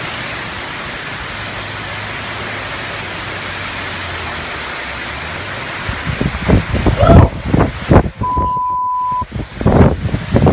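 Heavy rain hissing steadily, then from about six seconds in, strong wind gusts buffeting the microphone in loud, irregular rumbling blasts. A short steady beep sounds about eight seconds in.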